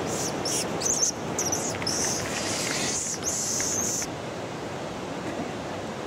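Steady rush of a mountain stream, with a run of high, thin chirping calls over it that stops about four seconds in.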